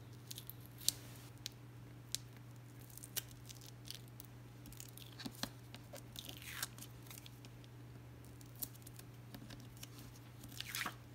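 Double-sided tape liner being picked at with a fingernail and peeled off card stock: faint scattered clicks and ticks, with short scratchy peeling rasps about six seconds in and again near the end.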